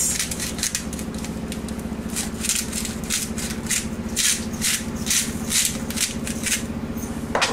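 Hand-twisted salt mill grinding salt: a run of short, gritty crunching strokes, two or three a second, as the mill is turned back and forth.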